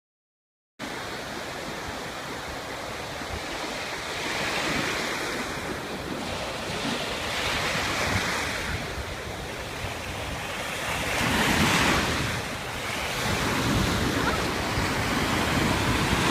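Ocean surf sound effect: a rushing wash of waves that starts about a second in and swells and falls back every three to four seconds.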